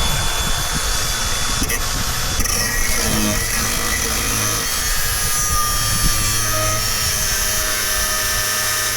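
Angle grinder cutting through a rusty exhaust: a steady, loud grinding hiss over the motor's whine, which sags a little in pitch partway through as it loads up.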